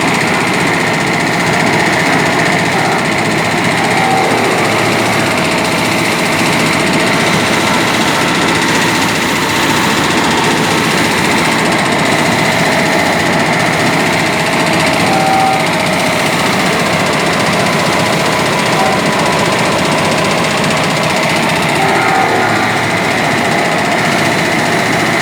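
An engine running steadily at a constant speed, with a dense, rapid mechanical clatter.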